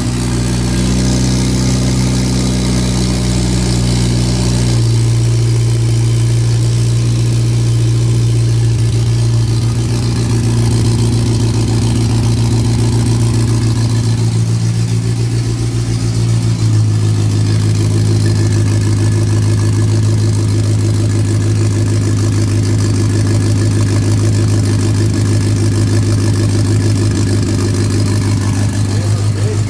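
Turbocharged VW Voyage's carbureted AP four-cylinder engine idling steadily, still cold just after starting. Its idle speed steps up about five seconds in and shifts again around sixteen seconds.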